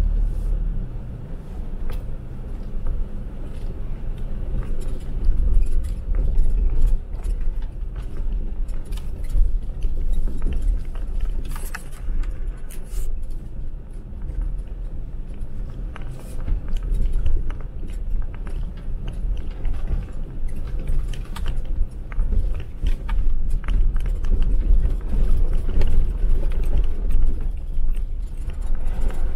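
Jeep Wrangler driving on a rough snowy track: a steady low rumble of engine and tyres with many scattered clicks and rattles.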